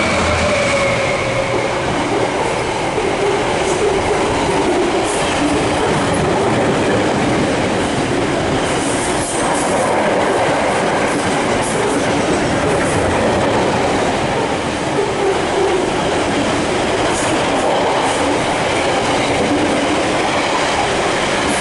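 Freight train hauled by a Class 66 diesel locomotive passing through at speed, its wagons rolling by with a steady rumble and the wheels clacking over the rail joints. A pitched tone from the passing train fades in the first second or two.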